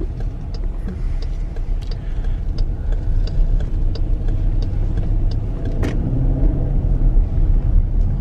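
Cabin sound of a Dodge Durango R/T's 5.7-litre HEMI V8 driving on a snow-covered road: a steady low rumble of engine and tyres. Light ticks come about every two-thirds of a second, with a brief swish about six seconds in.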